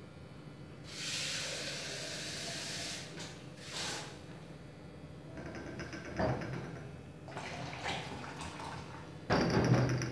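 Hot water being poured from a plastic pitcher into a plastic bin around small yogurt jars, splashing in spells, with a knock partway through and a loud thump near the end.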